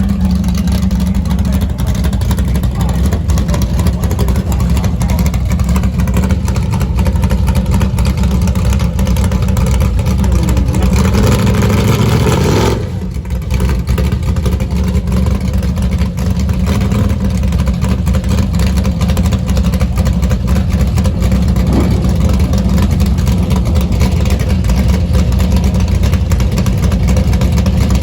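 Chevrolet 409 V8 engine in a drag car running loud and steady; about eleven seconds in it revs up, then cuts back sharply about two seconds later and settles back to steady running.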